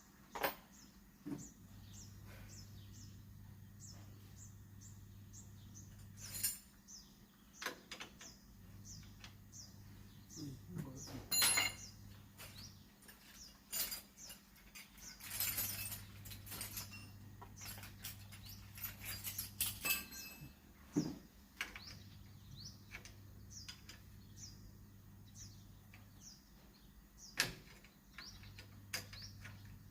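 Scattered metallic clinks and knocks of hand tools, loudest around the middle, over short high falling chirps of a bird repeating about twice a second.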